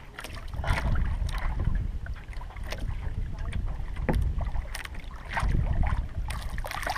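Wind buffeting the microphone over water sloshing against a small fishing canoe's hull, with scattered short knocks and splashes.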